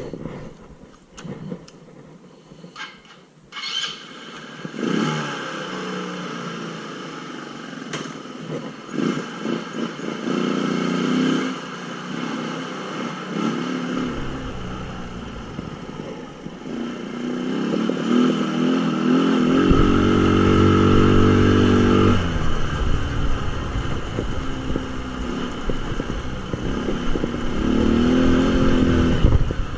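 Tao Tao 200cc 2x4 ATV engine running under way, its pitch rising and falling as the throttle is worked, with a few sharp clicks early on. The engine is quieter at first and grows louder and higher-revving from about two-thirds of the way in.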